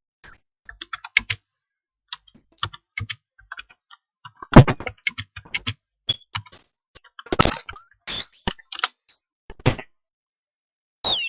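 Computer keyboard typing: irregular keystroke clicks, broken by a few louder sharp cracks and brief gliding chirps, picked up by the microphone during a Viber call.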